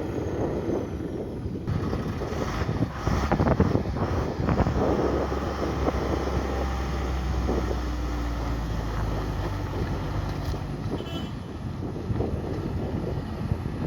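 JCB 3DX backhoe loader's diesel engine working under load, with a steady low drone that strengthens in the middle. Clattering knocks come a few seconds in.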